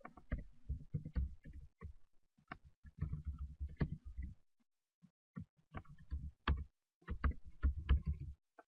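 Typing on a computer keyboard: irregular keystrokes in quick runs, each a sharp click with a dull thud, with a pause of about a second near the middle.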